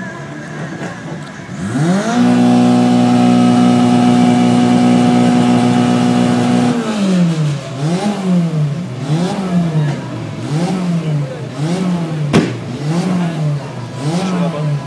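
Tuned car engine with an aftermarket exhaust being revved: it climbs quickly about two seconds in and is held at high revs for about five seconds, then blipped up and down in a steady rhythm, roughly once a second. A single sharp click sounds near the end.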